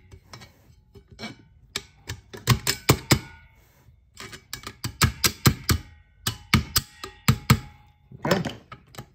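Sharp metal clicks and clacks in irregular clusters as a snap ring is worked into its groove on a 4L60E transmission clutch drum, locking in the stack of steel and friction clutch plates, with a short scrape near the end.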